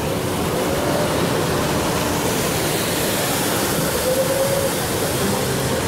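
Steady rushing and splashing of water around a ride boat in a shallow lagoon, with a fountain jet spraying close beside it.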